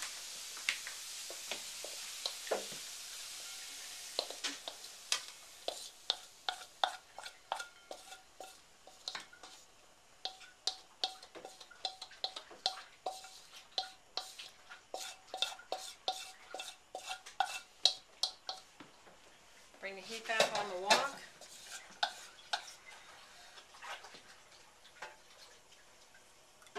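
A metal spatula scraping and clicking against a wok, several strokes a second, as stir-fried zucchini is scraped out into a serving bowl. The oil's sizzle dies away over the first few seconds.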